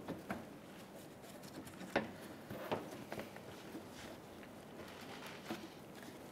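Faint, scattered light clicks and taps of gloved hands working the edge of a plastic front bumper cover, easing it off its clips.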